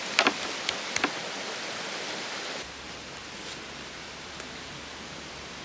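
Steady rushing water ambience, like a nearby stream, with a few sharp knocks in the first second. About halfway through the ambience drops to a quieter, lower rush.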